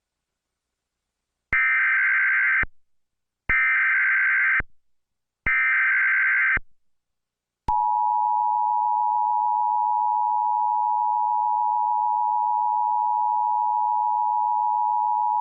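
Emergency Alert System tones: three short, screechy bursts of SAME header data of about a second each, then about eight seconds in the steady two-tone EAS attention signal begins. Together they announce a tornado warning.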